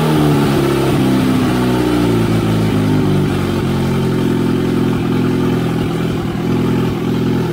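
Saab B204 2.0-litre four-cylinder engine running steadily and very loud on its first start after the swap. It is running unboosted with the turbo compressor housing off, and the exhaust exits straight out through the bonnet.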